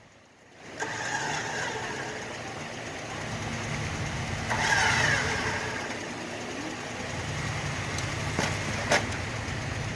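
Off-road vehicle engine running under load as it crawls over rough trail. The engine starts to be heard about a second in and swells louder around the middle. Two sharp knocks come near the end.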